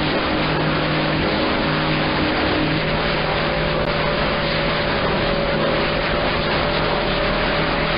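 AM receiver audio from CB channel 6 (27.025 MHz) swamped by several high-power stations keyed up at once: a loud, dense hiss and rumble with steady heterodyne whistles from the beating carriers, some dropping out and others coming in. The channel is too crowded to make out any words.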